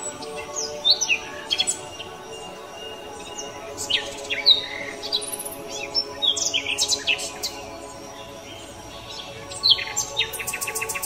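Background music: a soft sustained backing with birdsong over it, repeated chirps and quick downward-sweeping calls, ending in a fast run of chirps.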